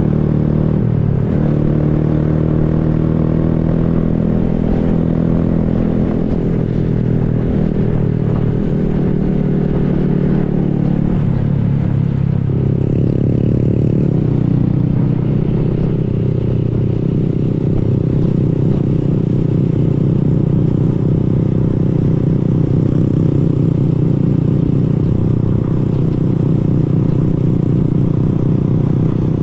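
Honda Grom's small single-cylinder four-stroke engine running while riding, its pitch dropping and climbing a few times in the first half as revs change, then holding steady at a cruise.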